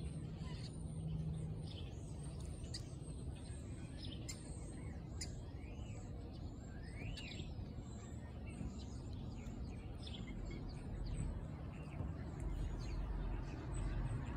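A flock of birds chirping overhead: many short, scattered chirps and a few rising-and-falling whistled calls, over steady low background noise.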